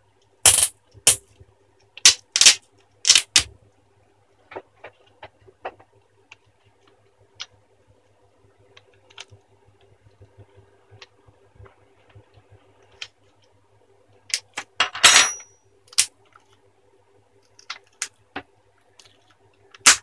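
Scattered sharp clicks and taps of a thin pry tool and fingertips on a laptop LCD panel and lid, several in quick succession at the start, with a short scratchy rustle about fifteen seconds in. A faint steady hum runs underneath.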